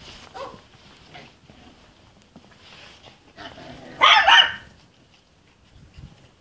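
Puppies barking: a pair of short yaps about four seconds in, with a few fainter yips before them.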